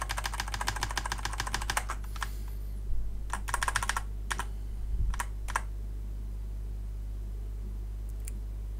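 Computer keyboard being typed on: a fast run of keystrokes for about two seconds, a shorter burst a little later and a few single taps, then the typing stops about halfway through. A steady low electrical hum runs underneath.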